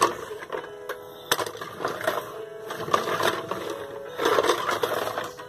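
Vintage Estrela Snif Snif Xereta pull-along toy dog rolled along by hand: its plastic wheels and mechanism give an uneven clacking rattle with sharp clicks and a few short squeaky notes.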